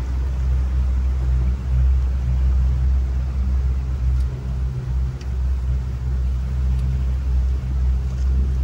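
Tour boat's motor running steadily, a low drone with a rumble beneath it.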